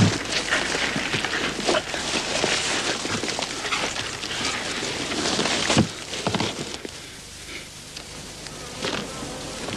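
Dry reeds rustling and crackling as something pushes through them, with scattered sharp snaps. It is louder for about the first six seconds, then quieter.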